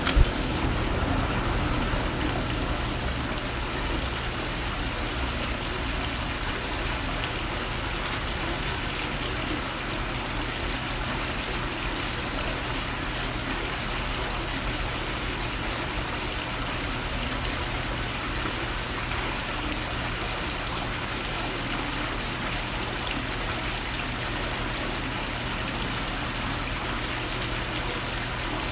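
Steady outdoor background noise: an even hiss with a constant low hum beneath it, and a brief high chirp about two seconds in.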